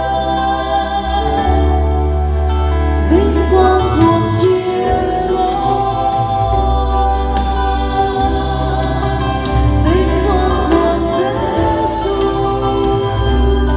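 A female and two male voices sing a Vietnamese gospel song in harmony through microphones, with held notes over an instrumental accompaniment that has a steady bass line.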